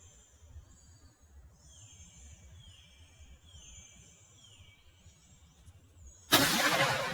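Small birds singing a few short, falling notes. About six seconds in comes a single shotgun blast, by far the loudest sound, whose report dies away over the next second or two.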